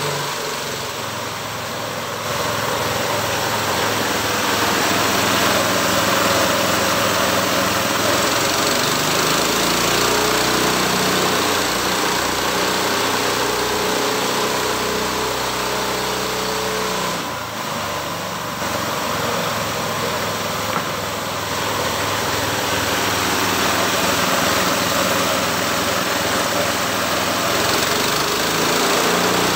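Home-built sawmill running steadily under engine power, loud and noisy, easing off briefly twice.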